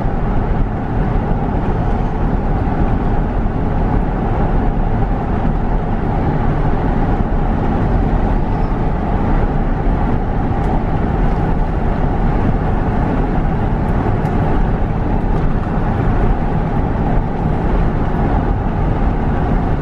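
Steady road and engine noise of a car driving along.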